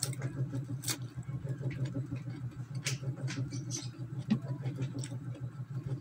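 Close-up chewing of a crisp raw cucumber, with a few sharp crunches.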